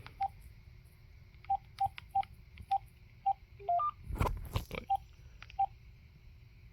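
Key-press beeps from a DECT 6.0 cordless phone handset as its menu buttons are pressed: about eight short beeps at one pitch spaced irregularly, with a quick rising three-note tone a little before the middle. A muffled thump of handling noise comes just after it.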